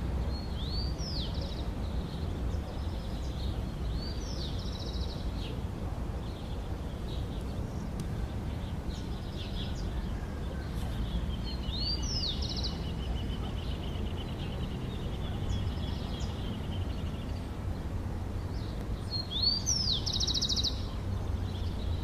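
Horneros calling: four bouts, each a sharp rising note running into a rapid trill, the last one near the end the loudest, over a steady low rumble.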